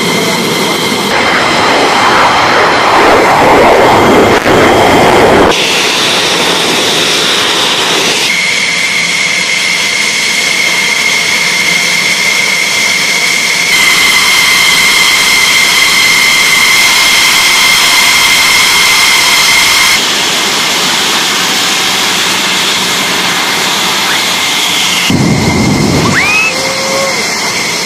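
F-16 fighter jet engines running on the flight line: a steady high whine over a broad rush of jet noise, changing in character at several abrupt cuts. Near the end a deeper, louder rush of jet noise swells up.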